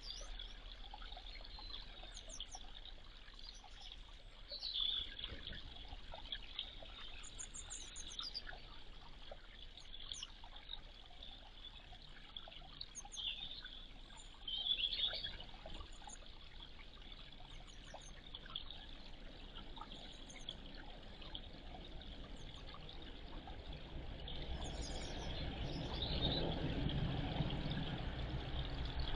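Small birds chirping now and then in short high calls over a steady background hiss, with a low rumble building near the end.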